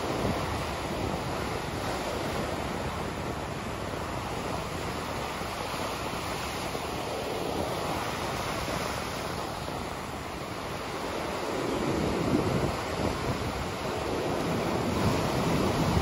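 Ocean surf: waves breaking and foam washing over the shallows in a steady rushing wash, growing louder about three quarters of the way through. Wind buffets the microphone with a low rumble.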